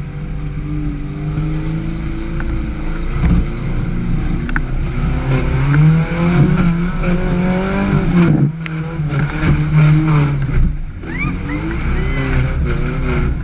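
Suzuki Samurai 4x4's engine revving hard under load while climbing through mud, its pitch rising and falling with the throttle and dropping off briefly twice in the second half.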